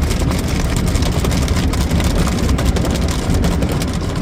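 A Ryko Softgloss MAXX 5 rollover car wash running its soft-touch cycle, heard from inside the car: the washer's brushes and water work over the body with a steady low rumble and hiss, broken by rapid slaps.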